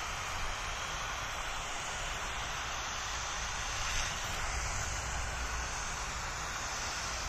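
Hand pump pressure sprayer misting steadily onto a waxed, water-beaded paint panel: a continuous hiss, with a low rumble underneath.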